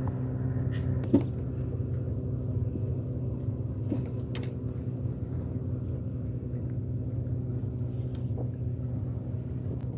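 A steady low motor drone runs throughout. A few light clicks and knocks of fishing tackle being handled come about a second in and twice around four seconds in.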